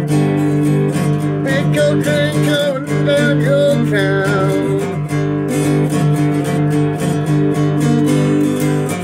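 Acoustic guitar strummed in a steady rhythm, with a harmonica on a neck rack playing a wavering melody over it from about one and a half to four and a half seconds in.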